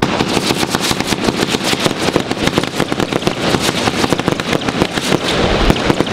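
Exploding Eagle firework going off: a dense, rapid string of bangs and crackles that starts abruptly and keeps going.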